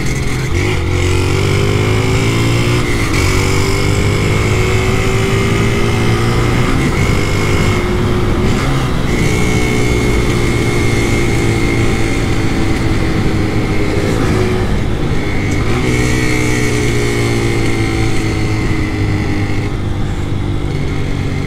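Caloi Mobilete moped's small two-stroke engine running under way, its pitch climbing and dropping back again and again as the throttle is opened and eased, with wind rush on the microphone.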